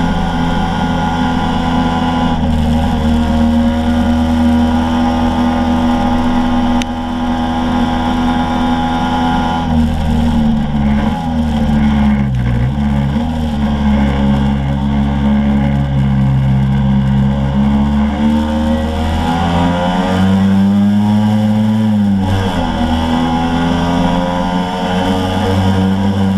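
Scooter engine running steadily at speed, heard close up. Its pitch dips briefly about halfway through, then falls and climbs back up a few seconds before the end, as the throttle is eased off and opened again.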